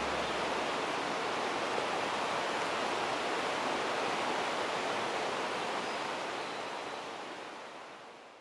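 River water rushing, a steady noise that fades out near the end.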